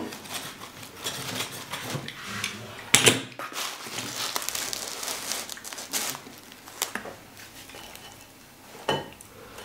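Knife cutting through pizza and scraping the cardboard pizza box, then a slice pulled out of the box onto a ceramic plate: rustling and scraping with scattered clicks and knocks, the sharpest about three seconds in.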